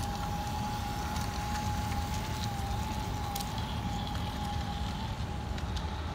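Large-scale model train running on brass track: a steady, slightly wavering high whine over a low rolling rumble, with scattered light clicks as the wheels cross the rail joints.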